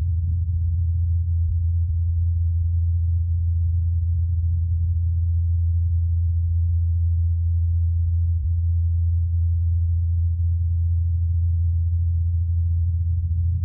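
Steady low hum of NASA's Ingenuity Mars helicopter, its coaxial rotor blades spinning at 2,537 rpm, picked up by the Perseverance rover's SuperCam microphone from about 80 m away in the thin Martian air. The hum is a single unchanging low tone.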